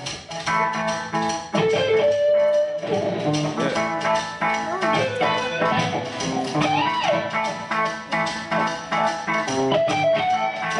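Guitar music with a bluesy feel: rows of picked notes, and notes bending in pitch about halfway through.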